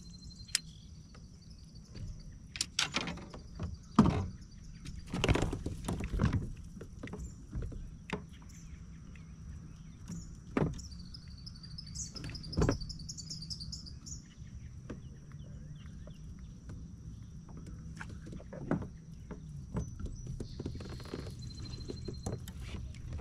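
Irregular knocks and clatter as a landing net and a just-caught bass are handled in a fishing kayak. The loudest knock comes about four seconds in. Birds chirp about halfway through.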